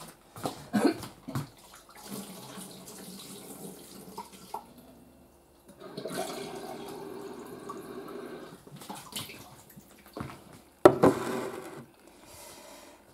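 Water being poured off a glass jar of fermenting tomato seeds, the murky top layer with pulp and light, hollow seeds going out while the good seeds stay at the bottom, then the jar refilled with clean water in a steady stream from about six to nine seconds in. A sharp knock just before the end, as of the glass jar set down.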